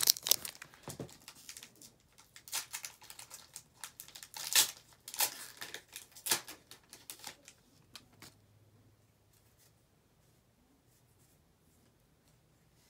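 Foil booster pack wrapper crinkling and tearing open, a series of short, sharp rustles and crackles that stop about eight seconds in.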